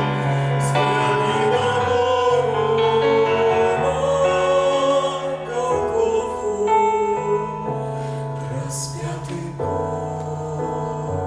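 A slow Russian sacred song sung by a man and a woman, with held, wavering notes over sustained instrumental accompaniment.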